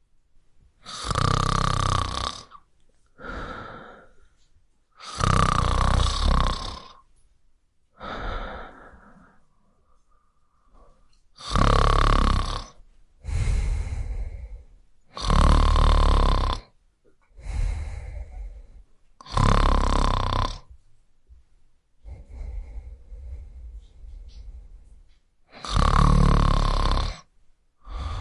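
A man snoring: a string of loud snores, each a second or so long and a few seconds apart, with softer breaths between.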